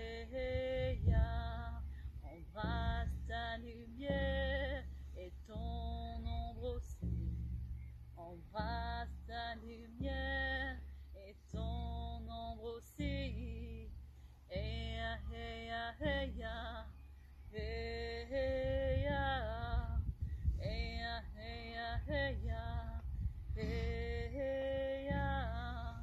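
A woman singing a slow chant in phrases of a few seconds, with a hand-held frame drum sounding low and steady beneath her voice.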